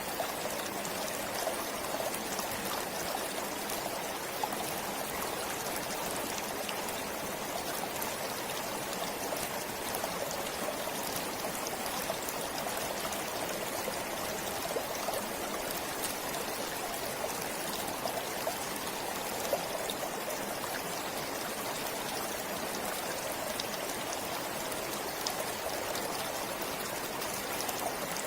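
Forest stream flowing steadily over stones, a continuous rushing and trickling of water with small splashes.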